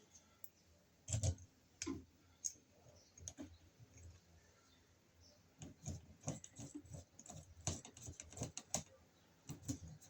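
Irregular clicks and taps of hands handling wires and parts at an electrical outlet box, with one louder knock about a second in and a quick run of clicks through the second half.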